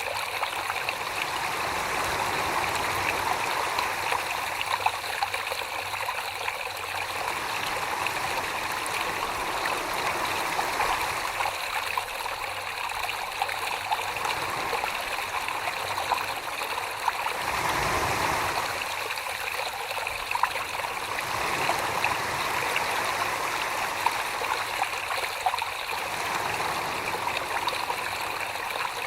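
Wet clay being thrown on a potter's wheel: a continuous wet swishing from slip-covered hands working the spinning clay, swelling and easing every several seconds.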